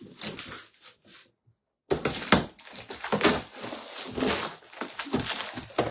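Cardboard box and its packaging being opened and handled: a run of irregular rustles, scrapes and crackles, broken by a short gap of silence about a second and a half in.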